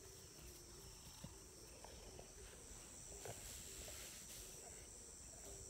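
Faint, steady chirring of insects, with a few soft ticks.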